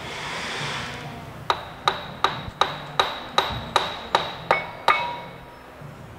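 Hammer blows on the end of a new CV axle on a Saab 9-5, about ten quick strikes, roughly three a second, each with a short metallic ring, driving the axle's inner end home into its shaft.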